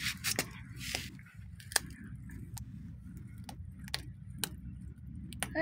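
A cat chewing and crunching food, an irregular run of small clicks and crackles. A short high cry begins right at the end.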